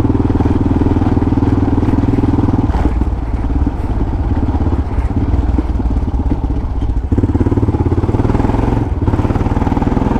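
Yamaha XT600E's single-cylinder four-stroke engine running loud through an old Coyote aftermarket exhaust while the bike is ridden. The engine note drops about a third of the way in as the throttle eases, picks back up about two-thirds through, and dips briefly near the end.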